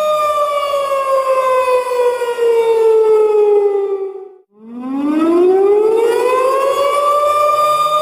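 Tornado warning siren wailing: its steady tone slides down in pitch and fades almost to nothing about four and a half seconds in, then climbs back up to the steady tone.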